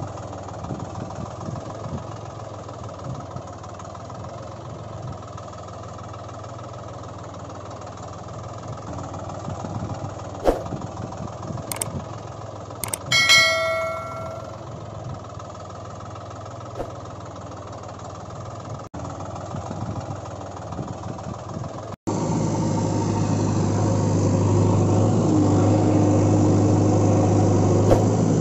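Steady low engine drone, with a bright bell ding that rings out about halfway through. After a cut near the end the drone becomes louder.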